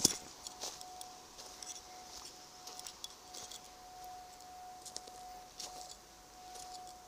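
Footsteps crackling over dry leaves and twigs on a forest floor, with scattered small clicks. A sharp knock from the handheld camera comes right at the start, and a faint steady high tone runs underneath.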